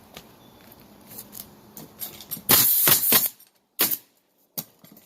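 Pneumatic roofing nailer driving nails through asphalt shingles: light clicks, then a loud cluster of sharp shots with a hiss of air about halfway through, followed by two more single shots.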